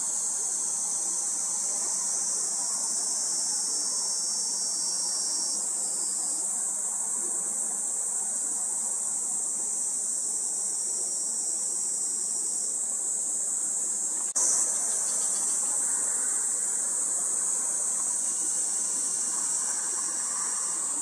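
Steady, high-pitched buzzing chorus of summer insects, with a brief click about two-thirds of the way through, after which it is slightly louder.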